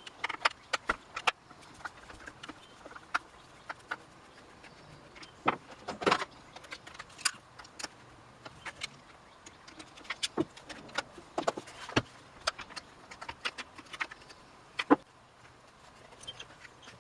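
Irregular clicks, taps and light clatter of hand tools and small metal and plastic chainsaw parts being handled during disassembly, with a sharper knock about six seconds in and another near the end.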